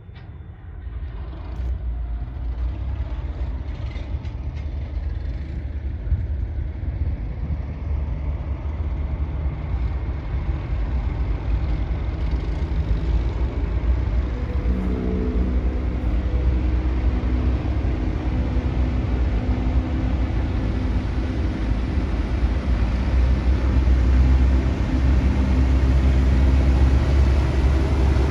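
Fishing boat engines running, a low steady rumble that grows louder over the stretch, with engine tones coming through from about halfway.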